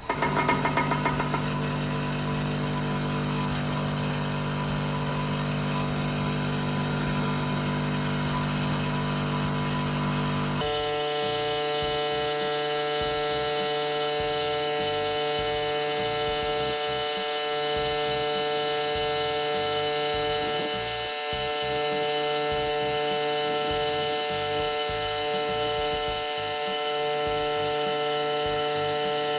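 Nitto Kagaku ANF-30 tabletop electric sieve shaker switched on and running with a loud, steady hum. About ten seconds in, the hum changes abruptly to a higher-pitched steady tone.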